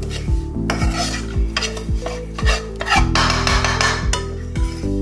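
Metal spoon stirring and scraping dried cassava flakes (gari) around a frying pan, a gritty scratching that thickens about three seconds in. It plays over background music with a steady beat.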